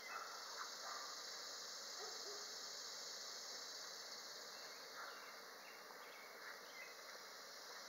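Steady high-pitched chorus of insects, with a few faint scrapes of a utensil in a cast-iron Dutch oven.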